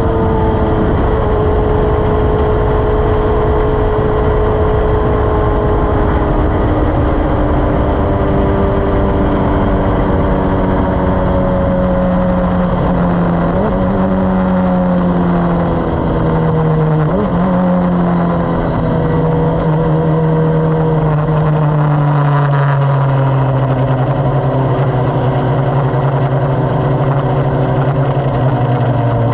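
Formula 1000 race car's engine running at part throttle, heard onboard, its pitch sinking slowly, with wind and tyre noise underneath. Two brief blips break the engine note a little under halfway through.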